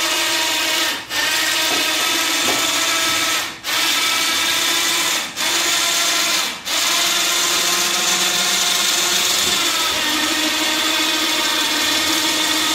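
Champion 2000 lb 12-volt electric winch on a kart lift running under load, winding in its cable to hoist a go-kart of about 250 pounds. It has a steady motor whine that cuts out briefly four times in the first seven seconds, then runs on without a break.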